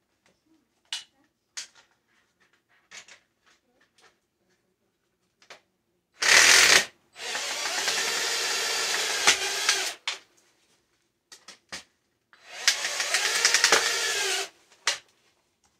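Power drill running in two sustained runs, about three seconds and then about two seconds, as screws are driven, with light handling clicks beforehand.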